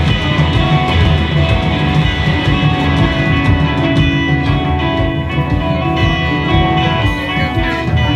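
Live rock band playing, with electric guitar and bass guitar over drums, recorded loud from the audience.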